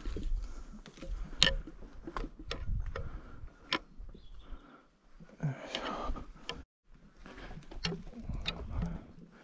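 Irregular sharp taps and scuffs of footsteps on a rocky mountain path, over a low rumble, with a brief break about two-thirds through.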